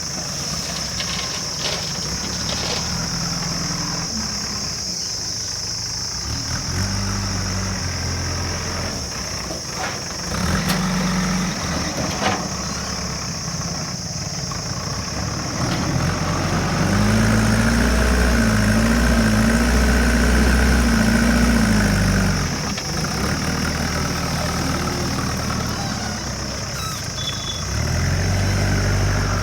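JCB 3DX backhoe loader's diesel engine running at a working idle, revving up under load for several seconds about two thirds of the way through and briefly again near the end, with a couple of sharp metallic knocks around the middle.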